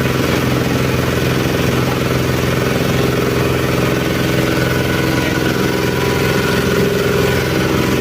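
Organic waste shredder machine running steadily, a constant mechanical hum with no change in speed.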